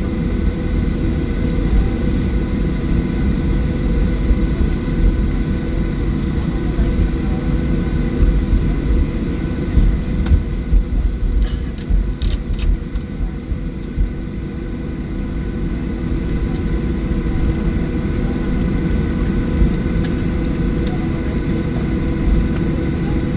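Steady cabin rumble of a Boeing 737-800 taxiing, with engine and air-conditioning hum holding several steady tones. A short cluster of sharp clicks comes about halfway through.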